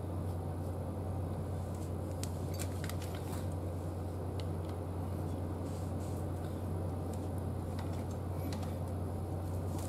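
A steady low hum from an unseen machine, with a few faint light clicks of a folding hex-key tool and small bolts being worked on a metal fork bracket, about three seconds in and again near the end.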